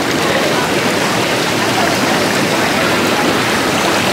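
Steady rush of running water in a spa's bathing pool.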